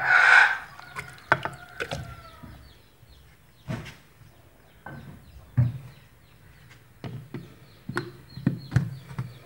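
Peeled orange segments sliding wetly out of a bowl into a glass blender jar in a short rush at the start. Scattered knocks and clicks follow as the jar is handled, with a few more near the end as its plastic lid is pressed on.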